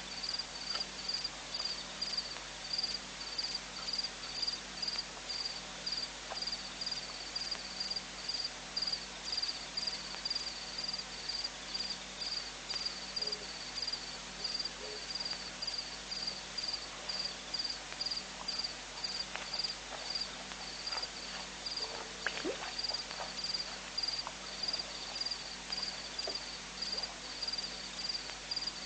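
A cricket chirping steadily in a high, even rhythm, about two chirps a second, with a few faint knocks and rustles a little past the middle.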